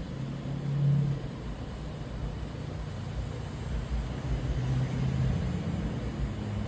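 Low engine hum with a slowly wavering pitch over a steady hiss, a little louder about a second in.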